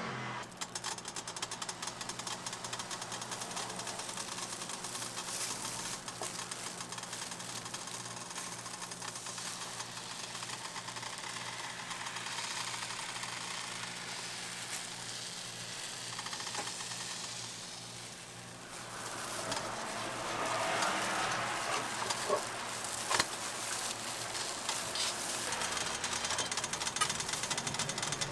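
Crepe cooking on a hot griddle: a steady electric hum under sizzling and utensil sounds. The noise grows louder about two-thirds of the way through, with a few sharp clicks and knocks.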